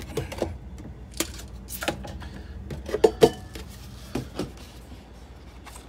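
Handling noise: a string of light knocks and clicks, the two loudest close together about three seconds in, as a plastic DampRid moisture-absorber tub is picked up from among glass beer bottles inside a chest freezer.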